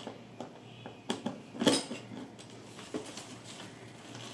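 Small metal clinks and fabric rustling as loosened handle screws, washers and the retaining bracket are handled under a suitcase liner: a few light clicks and one louder clink about a second and a half in.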